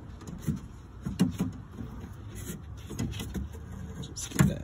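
Scattered knocks, clicks and rattles from a 2011 Mazda 3 rear door's window track and frame being worked loose by hand, with the loudest knock near the end.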